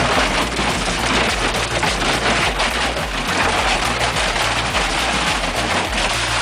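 Industrial shredder tearing through material: a dense, rapid crackling and crunching of breaking pieces over the machine's steady running.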